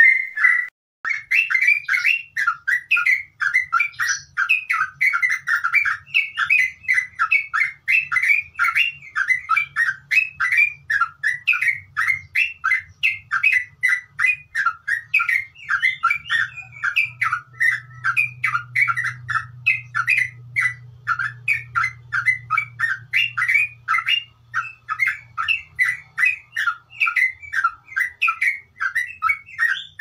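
Yellow-vented bulbul (trucukan) singing a continuous rapid, bubbly chatter of short chirping notes, several a second without a break, the long rolling song bird-keepers call ngeropel.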